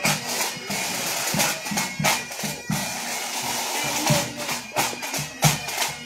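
Bagpipes playing a held, droning tune, with frequent short knocks and rustles close by.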